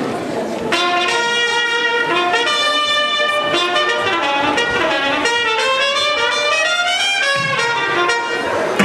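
Brass-led swing dance music for a jive starts about a second in, with a run of held and repeated notes.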